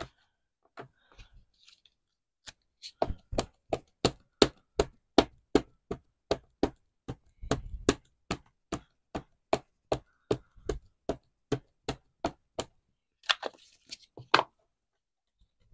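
Ink pad tapped over and over onto a stamp in a stamping platform: a steady run of sharp taps, about two to three a second, inking the stamp. Near the end, a brief rustle and a couple of louder knocks.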